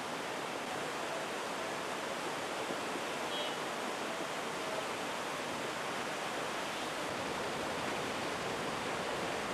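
Steady rushing roar of a muddy river in spate: floodwater pouring through the channel after heavy rain.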